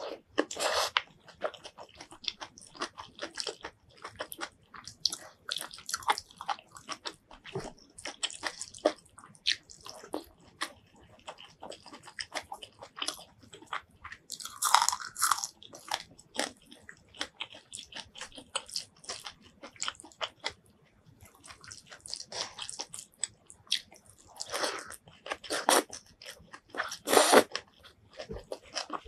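Close-miked eating sounds: chewing of rice and fried roselle leaves with bamboo shoots, with many small crisp crunches. About halfway through, a fried dried chilli is bitten with a louder crunch, and there are more loud crunches near the end.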